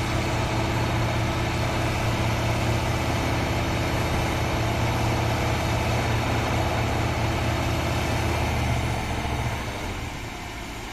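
Sheet-pile driving machine running with a steady, heavy drone and no separate hammer blows, easing off about nine and a half seconds in.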